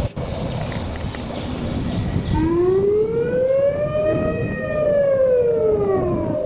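Civil defence warning siren wailing. It starts about two seconds in over a rough background rumble, its pitch rising slowly for about two seconds and then falling slowly again.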